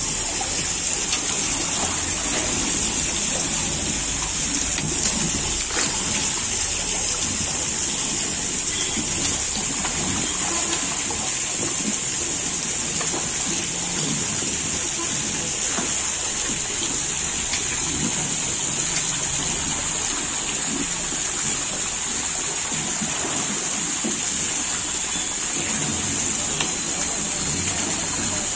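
Steady rush of running water in a shallow fish tank, with splashing as a hand net is swept through the water among the fish.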